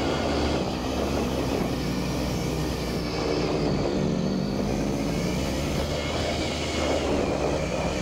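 Adventure motorcycle engine running steadily under way, its pitch wavering a little up and down around the middle.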